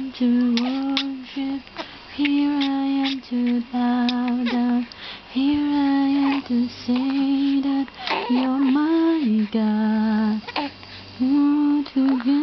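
A woman's voice singing a slow lullaby tune without clear words, in long held notes separated by short pauses.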